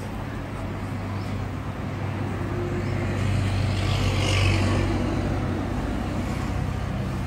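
Hot-air rework station blowing a steady stream of air from its nozzle onto a laptop chip to heat it during reballing, with a low electrical hum underneath. The hiss swells a little around the middle and then eases.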